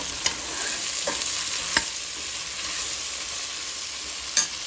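Okra pieces sizzling as they fry in oil in a stainless steel pot, stirred with a spoon that clicks against the pot a few times, the loudest click near the end.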